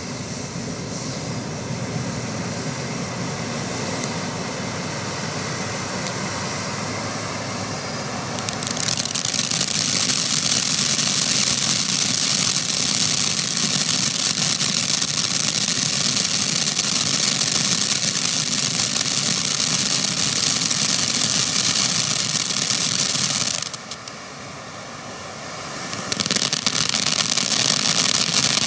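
Black Cat Iron Maiden 500-gram firework cake spraying a fountain of sparks: a steady rushing hiss that grows louder and thick with crackling about nine seconds in. It drops away briefly near the end, then starts again just as loud.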